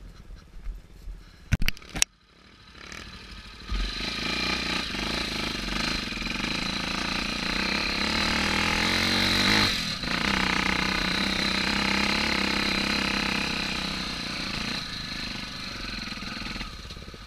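Trail motorcycle with a bored-out Honda XR250 Tornado single-cylinder four-stroke engine, pulling hard up a steep grassy hill. A couple of sharp knocks sound in the first two seconds. The engine comes in loud about four seconds in and runs strongly under load, dipping briefly about ten seconds in before carrying on.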